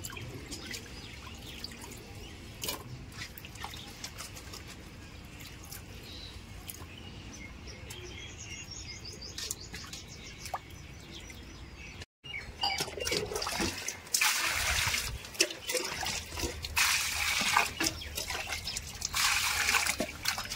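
Water dripping and trickling with small clicks. After a brief dropout about twelve seconds in, louder splashing water comes in three bursts.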